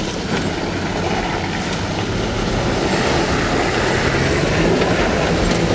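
Nissan Frontier pickup's engine running hard under load as it pushes through deep mud, over a steady wash of tyre and mud noise.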